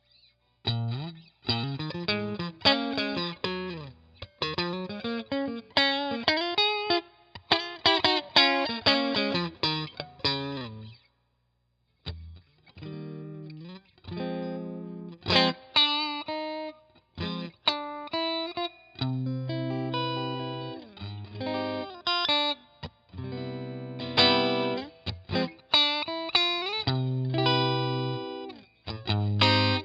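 Fesley ST electric guitar played through a clean amp with a little reverb: quick single-note runs, a short break about eleven seconds in, then strummed chords and held notes.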